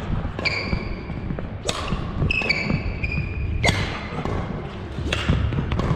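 Badminton rally: three sharp racket strikes on the shuttlecock, about one and a half to two seconds apart, with sneakers squeaking on the wooden court between them over the thud of footwork.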